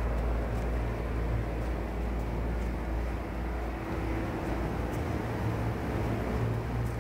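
A steady low hum with a rumble beneath it, unchanged throughout.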